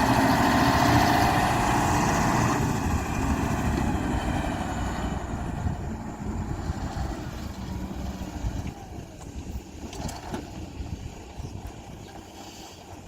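Engine of a heavy construction machine running, loudest at first and fading away over the next several seconds.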